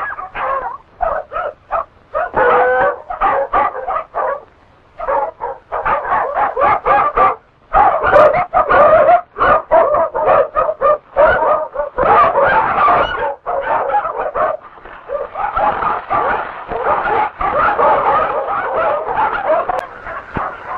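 A team of sled dogs barking and yelping, many voices overlapping in rapid short calls that run together into a continuous chorus near the end.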